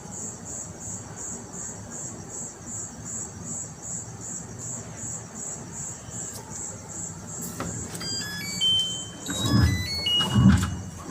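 A cricket chirping steadily in high, evenly spaced pulses, about three a second. Near the end a mobile phone ringtone starts, a melody of short notes over a loud bass beat.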